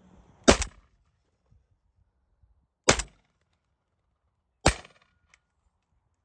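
Three shotgun shots from a semi-automatic shotgun: one about half a second in, one near three seconds and one near five seconds, each a sharp crack with a short ringing tail.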